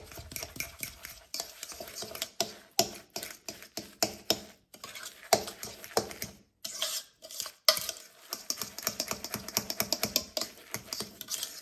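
Metal fork stirring a thick coconut, sugar and egg filling in a mixing bowl, clicking and scraping against the bowl in rapid, irregular strokes, with a few short pauses partway through.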